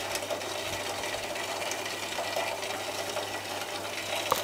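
Microwave oven transformer rig on mains running steadily, a constant electrical hum and buzz with faint crackles, as it drives a fluorescent tube that is arcing under water and heating it.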